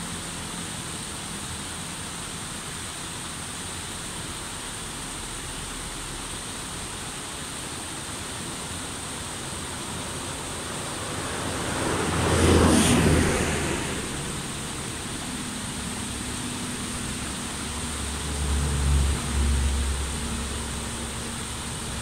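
Water running steadily over a small rocky cascade in a stream. A louder whoosh swells and fades about halfway through, and low rumbles come near the end.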